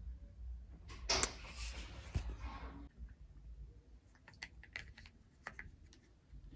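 A rustle of handling lasting about two seconds, with a sharp click about a second in, then a run of light plastic clicks and taps as Barbie dolls are handled.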